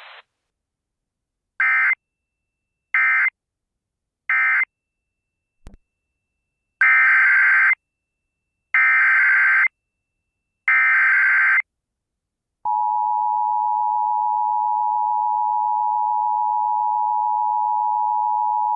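Emergency Alert System tones from a Sage ENDEC. First come three short warbling data bursts, the end-of-message code closing the previous warning. A click follows, then three longer SAME header bursts announcing the next warning. About two-thirds of the way in, the steady two-tone attention signal starts and holds.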